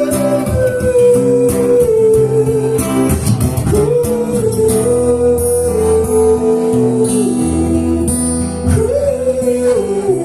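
Live acoustic song: strummed acoustic guitar under a wordless vocal melody of long held notes that slide from one pitch to the next.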